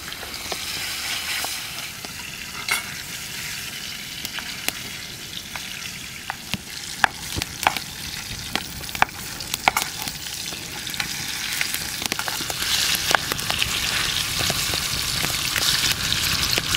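Food frying in hot oil in a pan over a campfire: a steady sizzle with frequent sharp pops, getting louder over the last few seconds.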